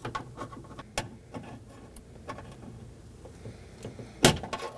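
Flat blade screwdriver prying at the plastic clip that holds the exterior door handle rod inside a car door: small scrapes and clicks, a sharp click about a second in, and a louder snap near the end as the clip lets go.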